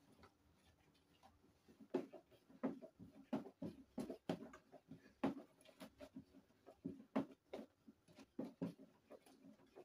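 Long plastic spatula stirring thick homemade liquid detergent in a plastic basin: irregular soft knocks and sloshes against the basin, about two a second, starting about two seconds in.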